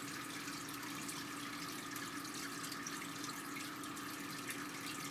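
Steady background noise: an even hiss with a low, constant hum underneath, and no distinct events.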